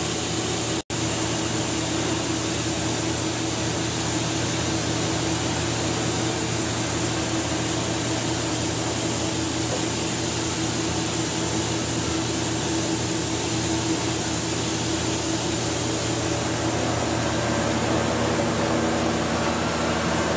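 Steady hum and hiss of a running Walter Helitronic Vision CNC tool grinder and the machinery around it, with a low steady tone under an even hiss. The sound cuts out for an instant about a second in.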